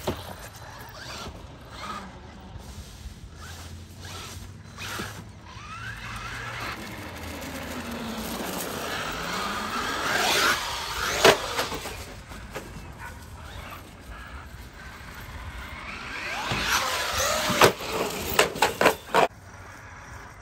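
Electric RC monster trucks driving: motor whine that rises and falls in pitch as they speed up and slow down, with tyre squeals. Sharp knocks from the trucks landing jumps, the loudest a little past halfway and a cluster near the end.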